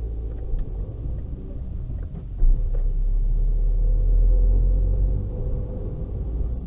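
Car engine and low cabin rumble, heard from inside the car as it moves off from a standstill and picks up speed. There is a short jolt about two and a half seconds in, after which the rumble is louder, and a few light clicks come before it.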